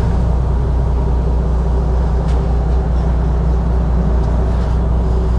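Steady low rumble of the Sunseeker 76's twin diesel engines running slowly during close-quarters manoeuvring, with a faint steady hum over it.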